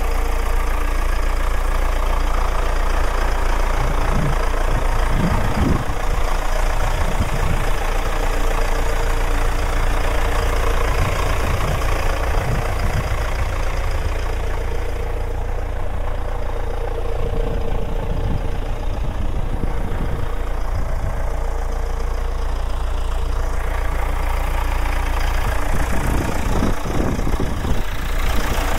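John Deere 6200's 3.9-litre four-cylinder diesel engine idling steadily.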